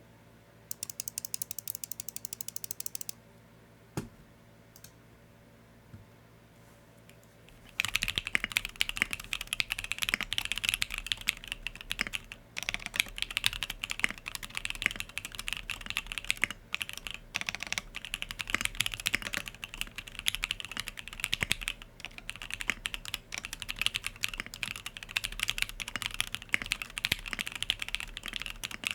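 Typing on a Sangeo65 mechanical keyboard with an aluminium plate, plate foam, lubed SP-Star Yanyu switches and Infinikey keycaps. A short burst of fast, high-pitched clicking and a few lone key presses come first. Steady continuous typing starts about eight seconds in.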